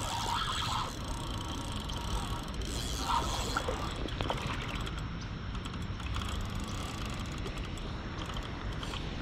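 Fishing reel being cranked against a hooked steelhead that is fighting hard, its gears giving a fast, steady run of clicks.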